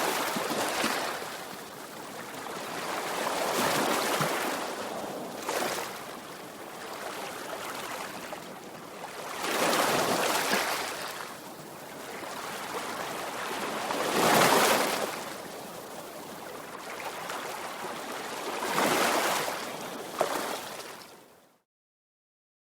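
Sea waves breaking and washing up on the shore, swelling to a loud crash every four to five seconds with surf hiss between. The sound cuts off abruptly near the end.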